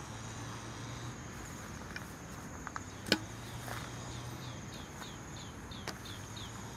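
Insect chorus trilling steadily at a high pitch. In the second half there is a run of short falling chirps from another animal, and a single sharp click about three seconds in.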